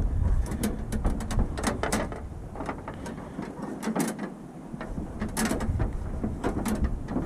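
Pipe cutter being turned around a length of brake line, making irregular clicks and scraping as the cutter wheel works through the tube.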